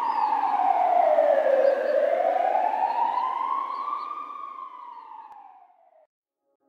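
Ambulance siren wailing in slow sweeps, its pitch falling, rising and falling again, growing fainter until it stops about six seconds in.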